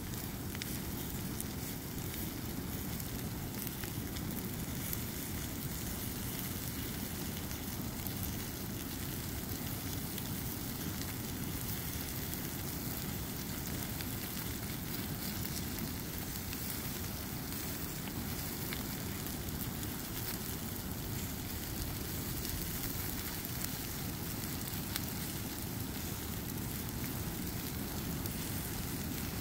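A pile of nylon winter clothing—snow pants, coats and jackets—burning in an open fire: a steady rush of flame with scattered small crackles and pops.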